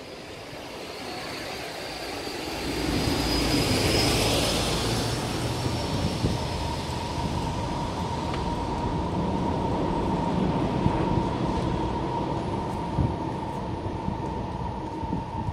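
A heavy road vehicle's engine rumbling close by, growing louder about three seconds in. A thin high whine fades out around six seconds, and a steadier, lower whine carries on after that.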